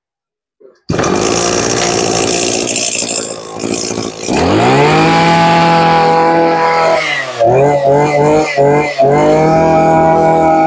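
Small Robin brushcutter engine starting about a second in and running rough, then rising in pitch to a steady high speed at about four seconds. Its speed dips and stutters a few times before it settles again.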